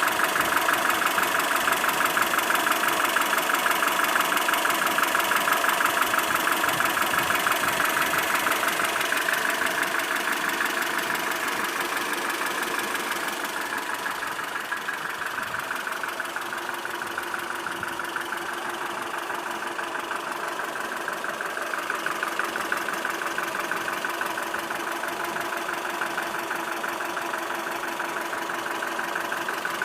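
ZMZ 402 inline four-cylinder petrol engine running with a steady, rapid knock, caused by play between the piston pins and the connecting rods in all four cylinders. It becomes quieter and duller about halfway through.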